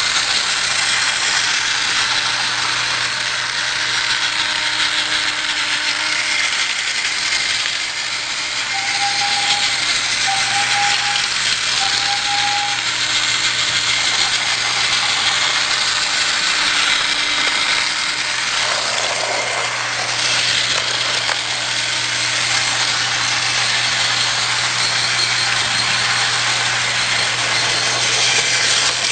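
Battery-powered TrackMaster toy train's small electric motor running steadily, its gears and wheels rattling along plastic track, with a constant low hum. About nine seconds in come three short, even tones.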